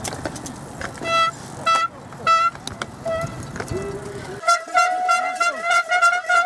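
Spectators' handheld horns tooting in short separate blasts over crowd noise, then, about four seconds in, a fast run of repeated toots.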